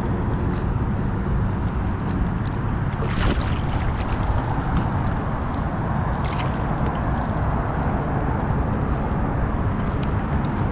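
Water sloshing and gurgling around a kayak under a steady low rumble, with two brief splashes, about three and six seconds in.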